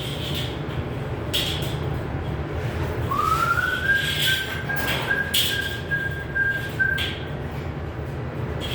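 A single high whistling tone slides up about three seconds in and is held, with small breaks, for about four seconds. Underneath is a steady low hum, with a few sharp clicks.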